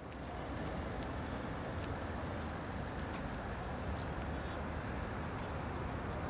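Steady low rumble of road traffic, with no speech over it.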